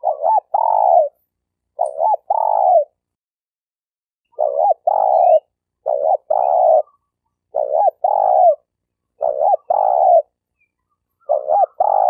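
Spotted dove (terkukur) cooing in the stuttering 'gagap' style: seven repeated phrases, each two quick short notes followed by a longer coo, with short pauses between, and one longer pause about three seconds in. It is a lure call, used to teach newly caught doves and to draw wild ones in when hunting.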